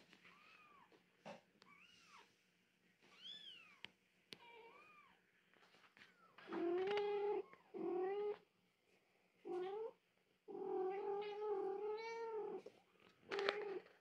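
Young kittens mewing: thin, high cries that rise and fall in the first few seconds. From about six seconds in comes a run of louder, lower and longer meows, the longest held about two seconds.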